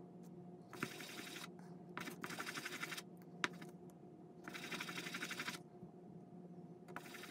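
Resin die scrubbed face-down in circles on fine white polishing paper for its final polish: four rasping scrubbing passes about a second each, with a couple of sharp clicks as the die is set down and turned. A faint steady hum runs underneath.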